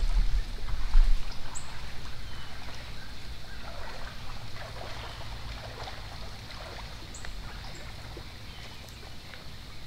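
Quiet woodland ambience: a low rumble of wind on the microphone, strongest in the first second or so, over a faint steady hiss. A few short, high bird chirps sound about a second and a half in and again around seven seconds.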